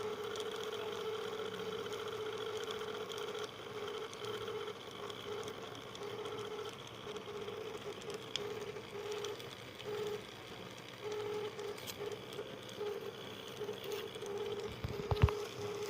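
Concrete mixer's motor running with a steady hum. About a quarter of the way in, the hum starts pulsing regularly, about one and a half beats a second. A single sharp knock comes near the end.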